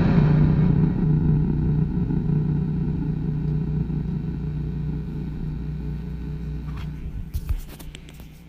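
Harsh electronic noise from a chain of effects pedals: a dense low drone that fades steadily away, with a few crackling clicks near the end as it dies out.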